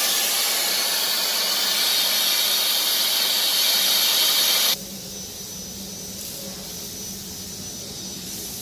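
CNC plasma torch cutting steel plate: a loud, steady hiss of the plasma arc that cuts off abruptly a little under five seconds in as the cut is finished. A much quieter steady hum remains after it.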